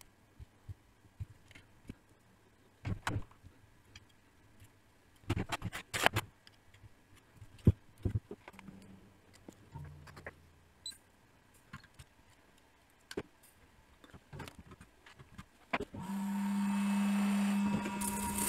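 Quiet, scattered clicks and taps of small tools and parts being handled on a circuit board during soldering work. About two seconds from the end, a steady machine hum starts and runs for roughly two seconds.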